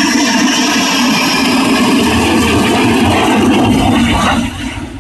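Sukhoi Su-30MKM fighter's twin turbofan engines roaring loudly as the jet flies low on its landing approach with gear down. The roar falls off sharply near the end.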